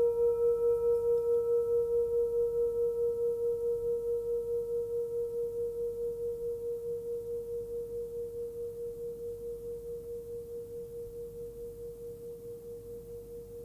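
Forged singing bowl, 12 cm across and tuned to A# (about 473 Hz), ringing on after a strike with one clear tone and a few faint higher overtones. The tone wavers about three times a second and fades slowly.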